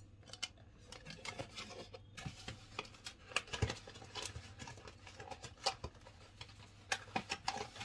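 Cardboard packaging and a paper sheet being handled: irregular light rustles and taps.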